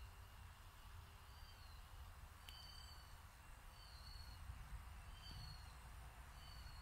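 A bird repeating a short, slightly falling high whistle about every second and a half, over a faint low rumble. A single sharp click about two and a half seconds in.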